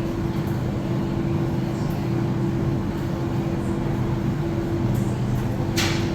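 Electrolux Professional gas tumble dryers running: a steady hum with a few fixed low tones over the rumble of the turning drums. A short sharp click sounds near the end.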